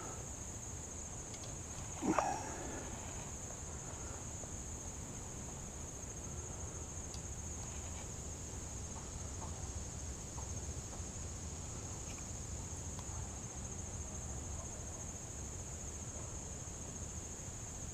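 Steady, unbroken high-pitched buzzing of an insect chorus, with a brief louder sound about two seconds in.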